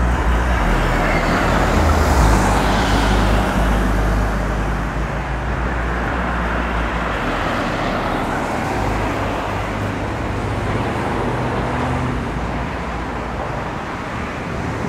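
Motor traffic and vehicle engines: a steady low engine rumble under general road noise, loudest for the first seven seconds and then easing a little.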